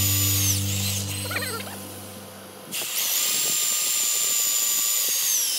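Cordless drill boring into a wooden block. The motor whine winds down about a second in, spins back up near three seconds, runs steadily, then slows again near the end.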